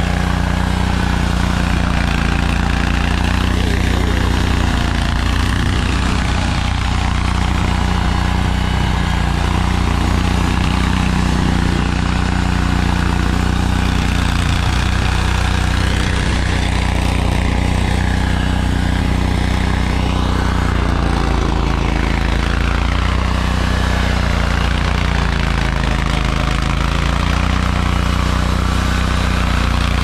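Toro Grandstand Multiforce stand-on unit's engine running steadily, its front snow blower attachment working through heavy, wet snow.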